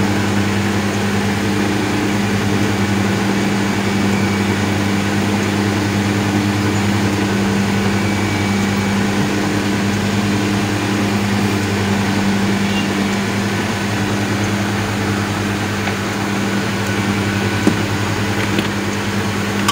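Idling engine: a steady, even low hum, with a faint click near the end.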